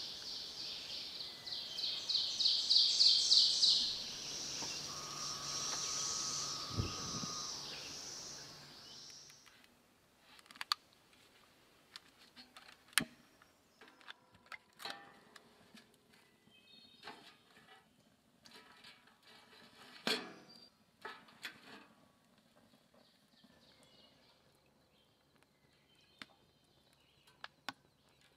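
Outdoor ambience with birds. For the first nine seconds or so there is a loud, high-pitched pulsing trill; after that it is much quieter, with scattered faint chirps and a few sharp clicks.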